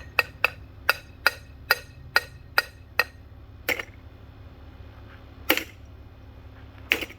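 A ceiling fan being struck over and over: nine sharp hits with a brief metallic ring, about three a second, then three slower, spaced hits.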